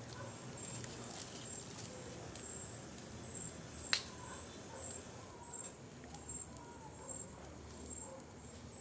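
Bonfire crackling faintly with scattered pops, one sharper pop about four seconds in. Under it, a high insect chirp repeats about twice a second.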